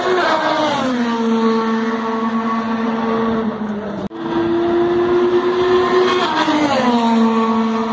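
An IndyCar's twin-turbo V6 passing at speed: its engine note drops in pitch as it goes by, then holds steady as it pulls away. After an abrupt cut about four seconds in, a second pass-by gives the same drop in pitch near the end.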